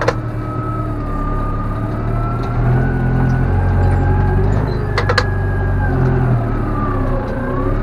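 Tractor engine running, heard from inside the cab, its note swelling and easing as the front loader works a manure heap, with a steady whine over it. Two sharp knocks come about five seconds in.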